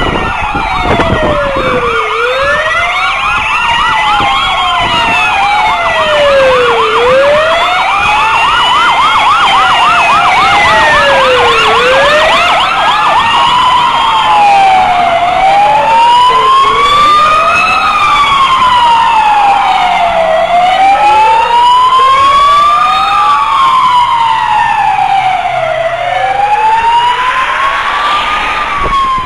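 Sirens of a fire-brigade convoy passing on a road, several at once: slow rising-and-falling wails at different pitches overlap each other, with a fast yelping siren among them for roughly the first half.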